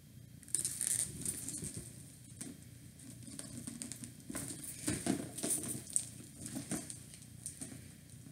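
Rustling, scuffing and small clicks of a varnished patent-leather handbag and its metal hardware being handled, starting about half a second in.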